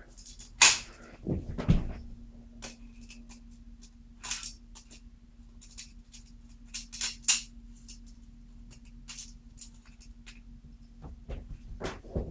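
Hands working on a laptop's plastic casing: a run of small clicks, taps and scrapes of plastic parts and screws, with a dull knock early on. A faint steady hum sits under them through most of the stretch.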